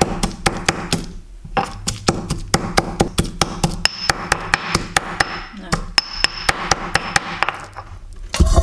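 Stone pestle pounding fresh red chilies in a granite mortar to make sambal: a quick, steady run of sharp knocks, about five a second, with a short break about a second in.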